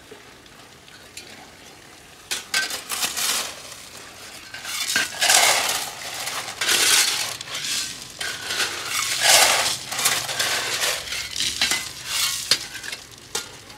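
Shovels digging and scraping into a heap of rounded pebbles, the stones crunching and clattering in a series of irregular scoops, several of them loud.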